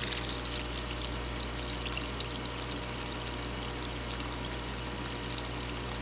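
Water pouring into the Haier HLP21N portable washing machine's tub through its inlet as the fill begins, a steady stream splashing onto the clothes.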